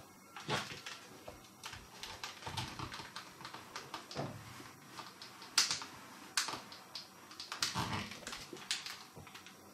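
Handling noises: irregular clicks, taps and rustling of paper and plastic as a carded figure in its blister is handled and a household iron is set down and pushed over a sheet of paper to flatten the card's edge, with a sharper click about five and a half seconds in.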